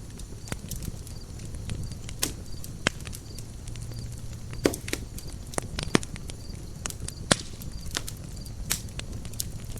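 Campfire of burning wood crackling, with sharp pops at irregular intervals over the low, steady rumble of the flames; the loudest pops come about three, five, six and seven seconds in.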